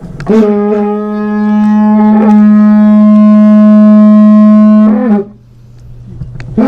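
A blown horn sounding one long, steady, loud note that lasts about five seconds, followed near the end by the start of a second blast.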